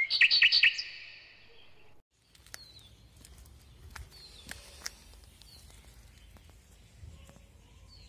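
Small songbird chirping: a loud quick run of four or five bright notes in the first second that fades away. After a brief break, a faint outdoor background in which a bird gives a short falling call every second or so, with a few light clicks.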